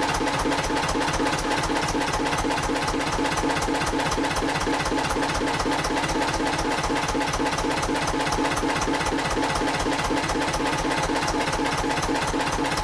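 Narrowboat's vintage-style inboard engine idling steadily, with an even, rapid beat that does not change.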